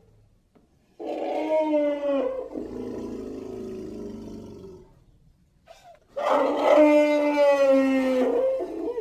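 Eurasian brown bear giving two long calls, the first about four seconds and the second about three. Each holds a steady pitch, then drops slightly at the end.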